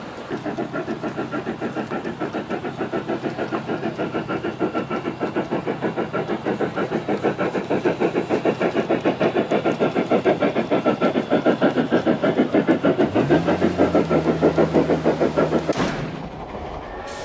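Large-scale garden-railway model steam locomotive running with a train of boxcars, its chuffing a fast, even rhythm that grows louder as it comes closer. A low steady tone sounds for a couple of seconds near the end.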